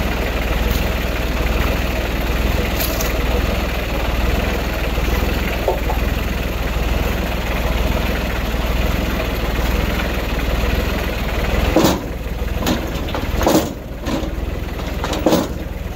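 New Holland tractor engine idling steadily, with a few sharp knocks about twelve seconds in and near the end.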